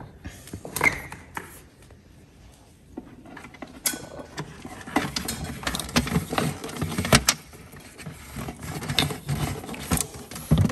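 Hands handling a wiring harness and fitting its cable into the plastic toilet-cassette compartment: scattered sharp clicks, knocks and light rattling of cable and plastic parts, quiet at first and busier from a few seconds in.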